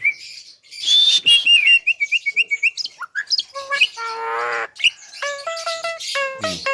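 A Javan myna singing a loud, varied run of sharp whistles and chirps, with a harsh buzzy call about four seconds in, then a quick string of repeated notes.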